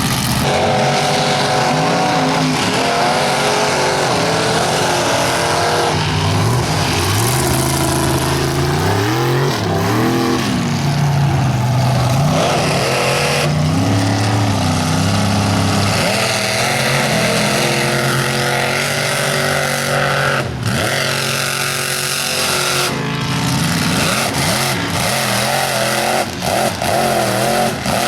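Supercharged mega truck engine revving hard under load while bogging through mud. Its pitch climbs and falls again and again, with a few short drops near the end.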